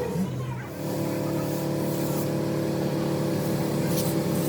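An engine running steadily at constant speed, with a steady hum that settles in about a second in after a brief dip.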